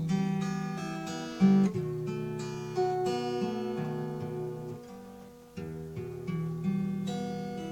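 Instrumental music: acoustic guitar playing the song's closing chords, strummed and picked. The last chord rings out and fades near the end.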